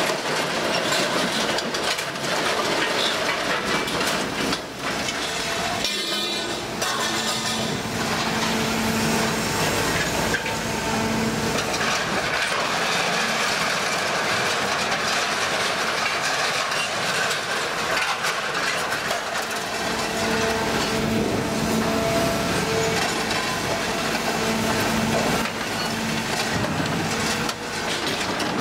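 Heavy stationary scrap-handling crane at work with an orange-peel grapple: a steady mechanical drone with hums that come and go, and scrap metal clanking and scraping as the grapple grabs and drops loads.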